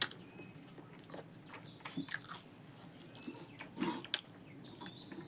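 Close-up mouth sounds of a person eating rice and pork: chewing and smacking, with a few sharp clicks, the loudest at the very start and about four seconds in.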